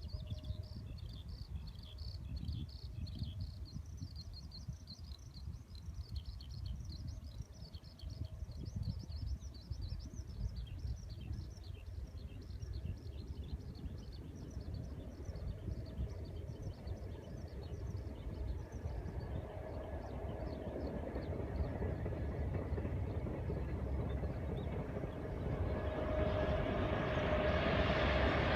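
Small birds chirp repeatedly over a low rumble, then an approaching train, an EF81 electric locomotive hauling 24-series sleeping cars, grows steadily louder over the last third with a steady hum.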